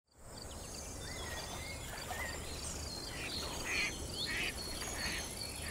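Birds chirping and calling over a steady, insect-like high hiss. Short chirps and gliding notes come first, and from about halfway in a call repeats roughly every half second.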